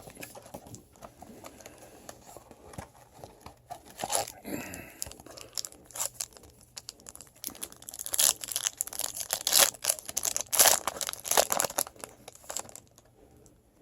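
Packaging on a box of 2014 Bowman Chrome football cards being torn open and crinkled by hand, in irregular rips and crackles that grow louder about two-thirds of the way through.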